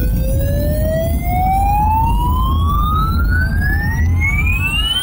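A single electronic tone with overtones, gliding smoothly and steadily upward in pitch, over a steady low rumble.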